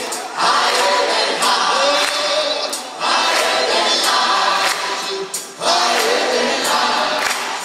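Choir singing a worship song with a live band, the singing coming in phrases with brief breaks between them and light percussion hits on top.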